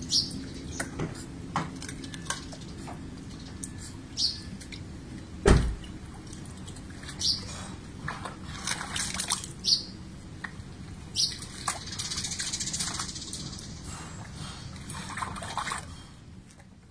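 Muddy water in a porcelain pot splashing and dripping in short, irregular bursts as a Pomeranian puppy moves about in it, with one louder thump about five and a half seconds in.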